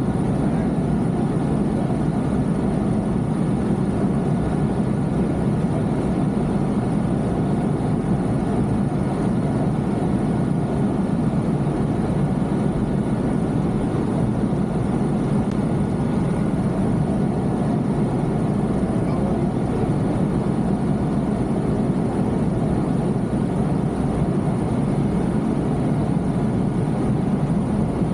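Helicopter in flight: the steady drone of its engine and rotor, with a thin high-pitched whine held on top.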